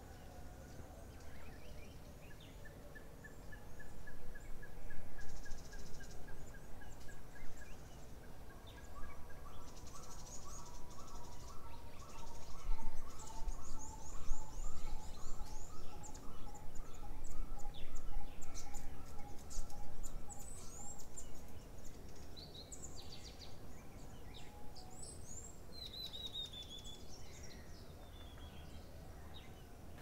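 Wild birds calling: one keeps repeating a short whistled note about twice a second in long runs, while higher chirps and twitters come over the top. A short falling trill comes near the end.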